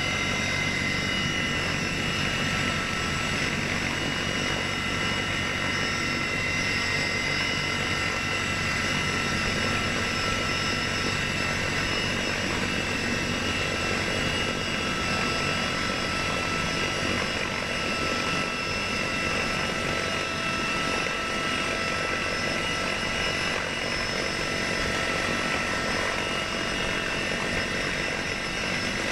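Heavy transport helicopter's engines, rotors and gearbox heard from inside the cabin: a steady loud drone with a constant high whine.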